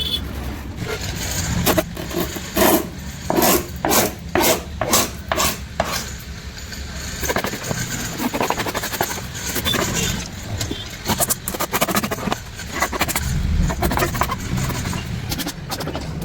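Hand work on a plywood drawer being made and laminated: a run of short scraping strokes on the wood, about two a second, for a few seconds. Then a steadier rubbing noise with scattered clicks.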